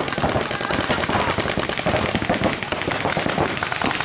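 Paintball markers firing rapid, overlapping strings of shots during a match.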